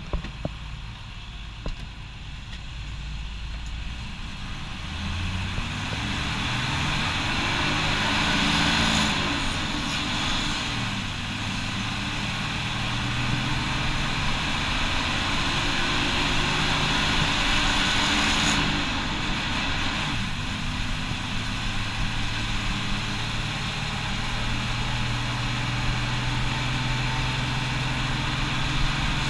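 A bus's diesel engine pulling away and accelerating hard, its pitch climbing through the gears and dropping back at gear changes about a third and two thirds of the way in. Road and wind noise rush steadily louder as the bus gathers speed.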